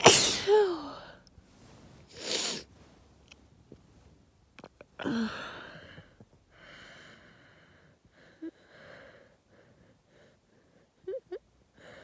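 A woman sneezing uncovered, set off by dust: a loud, open sneeze at the start with a falling voiced 'choo', a sharp breath about two seconds later, and a second sneeze about five seconds in. Quieter breathing and small mouth sounds follow.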